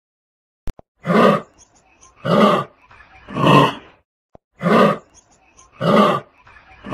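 Kangaroo calls: six short, rough calls, each about half a second long, repeating about once every 1.2 seconds.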